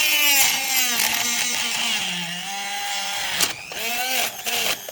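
Small electric grinder spinning a disc of X-ray film against a plastic toy. The motor's whine drops and wavers in pitch under the load of the cut, with a sharp click about three and a half seconds in and another near the end.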